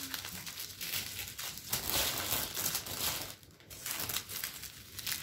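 Small plastic packets of diamond-painting drills crinkling and rustling as they are handled and sorted, with a short lull about three and a half seconds in.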